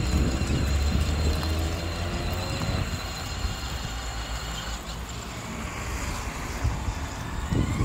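Electric ride-on toy buggy driving away across rough asphalt: its small motors whine and its plastic wheels rumble, growing fainter as it moves off, with wind buffeting the microphone.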